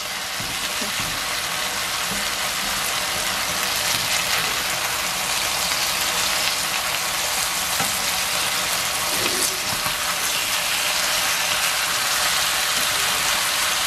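Boneless chicken pieces and chopped green onion frying in oil in a nonstick frying pan, a steady sizzle.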